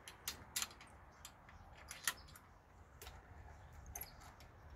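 A gate being opened by hand: faint, irregular clicks and light knocks, roughly one a second, from its latch and frame being worked.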